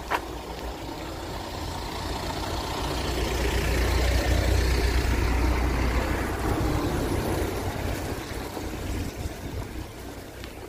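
A van driving slowly past on wet cobbled paving: engine rumble and tyre hiss swell to a peak about halfway through, then fade.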